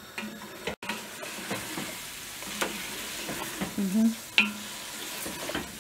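Wooden spoon stirring food in an enamel pot on the stove, with a few sharp knocks or scrapes against the pot, over a steady hiss from the cooking food.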